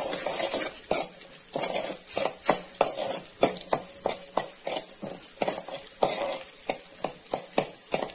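Steel spatula stirring in a coated kadai, scraping and tapping against the pan a few times a second, while sliced shallots and whole spices sizzle in hot oil.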